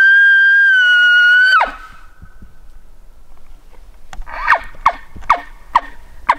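Elk calls: one long, loud, high whistle held for about a second and a half that breaks sharply downward at the end, then, a few seconds later, five short mews that each slide down in pitch.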